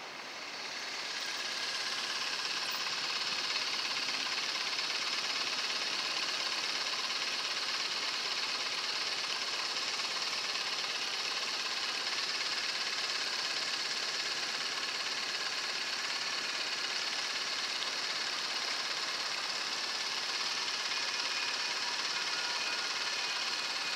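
Railroad crossing warning bell ringing steadily at a light-rail grade crossing with the red signals flashing and the gates down. It comes up about a second in and holds at an even level after that.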